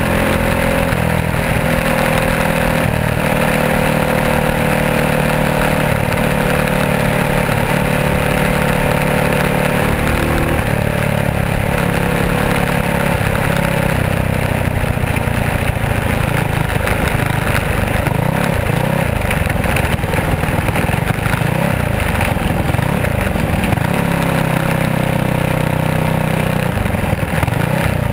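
Dirt-track race car engine running at racing speed, heard close up from the cockpit, its revs rising and falling continuously.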